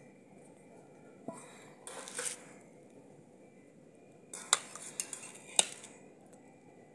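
Metal kitchenware clinking: a steel bowl knocks down and scrapes briefly early on. Then a wire-mesh skimmer and a ladle strike a steel karahi three times in sharp clinks about four to six seconds in, as boiled watermelon rind pieces are scooped out of the water.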